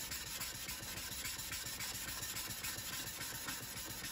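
Steel card scraper edge, held upright in a wooden guide block, being rubbed back and forth on a sharpening stone: a steady gritty scraping. The edge is being honed flat to remove the marks a file left on it.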